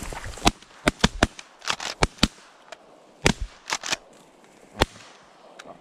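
A volley of shotgun shots at passing ducks, about a dozen in quick, uneven succession over the first five seconds, some loud and close and others fainter, from several hunters' shotguns.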